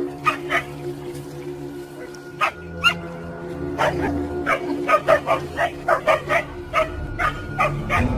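Dogs barking: a few single barks early on, then a quick run of barks, about four a second, from about halfway. Steady background music plays underneath.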